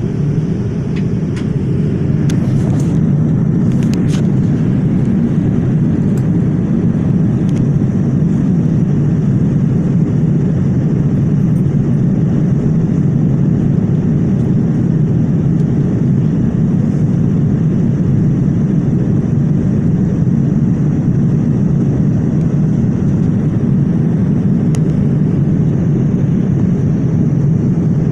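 Boeing 787 jet noise: a steady, unchanging low rumble, with a few faint clicks in the first few seconds.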